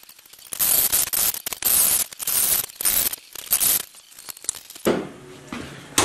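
Irregular scraping and rasping of hand work, in a string of short bursts that stop about five seconds in.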